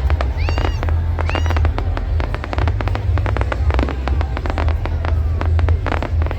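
Fireworks display: dense crackling and popping with many sharp bangs, and two short rising whistles in the first second and a half, over a steady low rumble.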